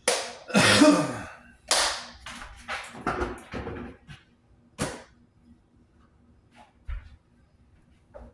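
Handling noise from a plastic food container being closed with its lid: rustling and clicks, loudest in the first second. Then come scattered clicks and knocks, and a low thump near the end.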